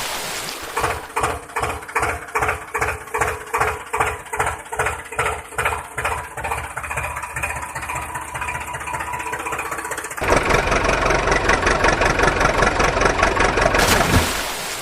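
Engine chugging in an even beat of about two strokes a second that slowly fades, then a louder, steadier running engine that starts abruptly about ten seconds in.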